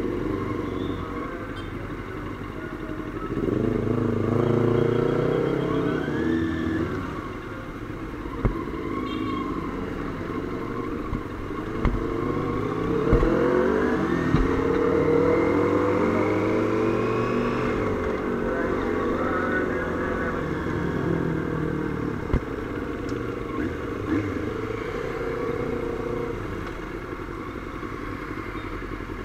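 Motorcycle engines running as sport bikes ride together in traffic, their pitch rising and falling several times with throttle and gear changes, over steady road and wind noise. A few sharp knocks are scattered through.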